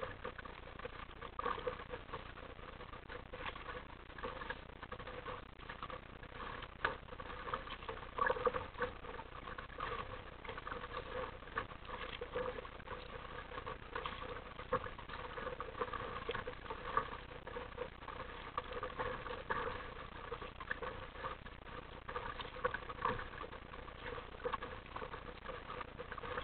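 Water lapping and slapping against the plastic hull of an RTM Mambo sit-on-top kayak as it moves through light chop: a steady patter with irregular small splashes.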